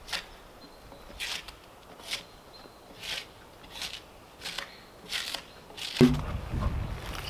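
Bark being scraped and peeled off a freshly felled log with a hand blade, in short rasping strokes about one a second. Near the end a louder thump and a low rumbling noise take over.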